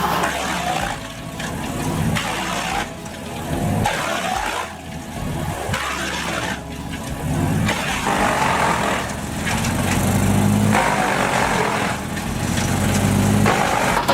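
Engine-driven wood chipper running under load, its engine note rising and falling, with a rough grinding noise from the chipping. The sound changes abruptly several times, every couple of seconds.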